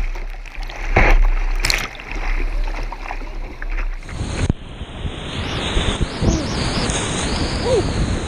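Whitewater rapids rushing at high flow, with sharp splashes of water and paddle strokes around a kayak for the first few seconds. About four seconds in, the sound changes abruptly to a steady, dense rush of big rapids with wind on the microphone.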